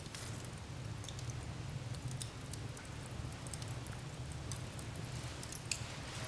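Wood fire crackling in a fireplace: a steady low rumble of flames with scattered sharp pops, one louder pop near the end.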